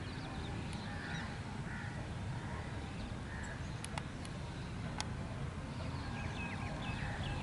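Faint open-air ambience: a steady low rumble with scattered faint bird calls and chirps, and a few sharp clicks about four and five seconds in.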